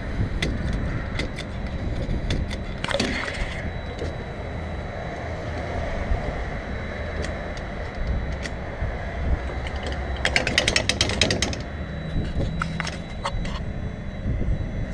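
Gas station forecourt at the pump: a steady low rumble with a faint thin whine over it, a brief rattle about three seconds in, and a quick run of about a dozen sharp clicks around ten seconds in.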